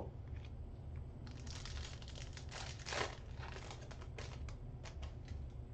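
Foil wrapper of a 2022 Select Football trading-card pack crinkling as it is torn open and handled, an irregular run of crackles that is loudest about three seconds in.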